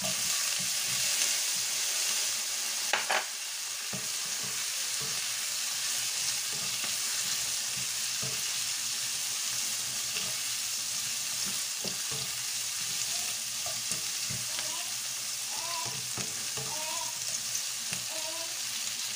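Pineapple chunks, bell pepper and garlic sizzling in hot oil in a non-stick wok, with a spatula stirring and scraping against the pan. There is a brief louder sound about three seconds in.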